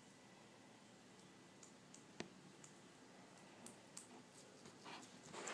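A young sugar glider chewing cucumber: faint, scattered little clicks and smacks of its mouth, growing more frequent near the end.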